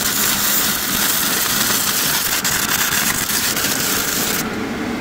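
Electric arc welding: the welding arc gives a steady hiss with crackling, then cuts off sharply about four and a half seconds in.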